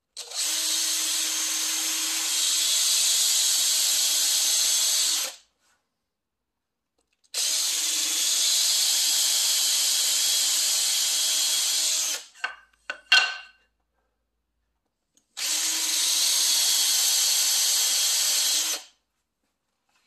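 Power drill boring holes through a wooden strip, running at a steady speed in three bursts of about five, five and three and a half seconds. A few sharp clicks or knocks come between the second and third bursts.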